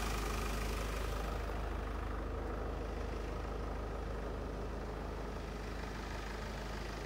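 An engine idling steadily. A higher rushing noise fades away about a second and a half in.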